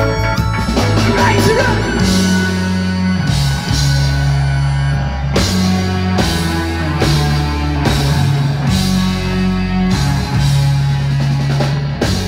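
Live rock band playing amplified music on electric guitar, bass guitar, keyboards and drum kit, with held bass notes changing about every second under the drum hits.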